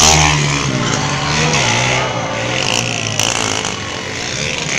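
Motorcycle engine revving hard, its pitch rising and falling as a stunt rider works the throttle, loudest right at the start.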